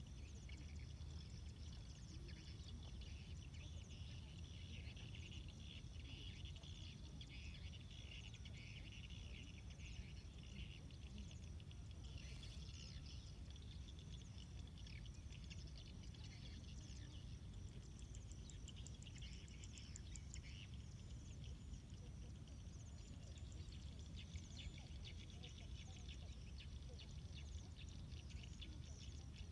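Quiet open-field ambience: a low steady rumble of wind on the microphone under faint high chirping from small animals, with a brief fast ticking trill about two-thirds of the way through.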